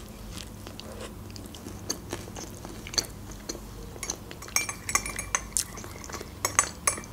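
Close-up mouth sounds of biting and chewing a soft mini pizza. From about halfway in, a metal spoon stirs coffee in a glass mug, clinking against the glass in quick ringing taps.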